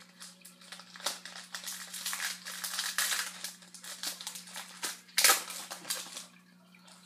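Foil trading card pack wrapper being torn open and crumpled by hand: a crackling, crinkling rustle with a sharp loud crackle near the end.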